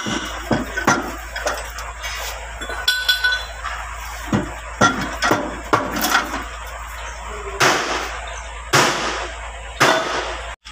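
Irregular metallic knocks and clinks of hand tools working on a tractor's brake housing, with two longer scraping noises near the end.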